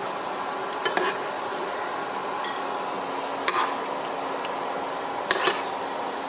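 Cashews and raisins in hot ghee sizzling steadily in a non-stick pan as they are spooned out, with three short clinks of the utensil against the pan or plate, about one, three and a half and five seconds in.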